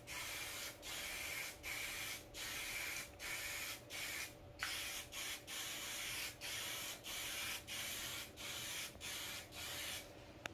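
Aerosol spray can hissing in short repeated bursts, about three every two seconds, as clear coating is sprayed across a car's hood. The hiss stops near the end. The user judged the can to give a lot more air than spray.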